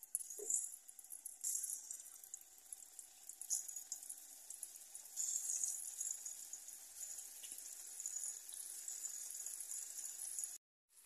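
Hot oil in a cast-iron wok sizzling as balls of banana dough are dropped in one after another, flaring louder each time a piece goes in, then a steady frying hiss. It cuts off suddenly near the end.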